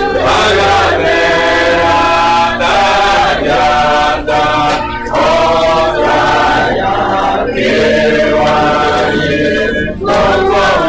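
A group of voices singing a hymn together, phrase by phrase with brief pauses between lines.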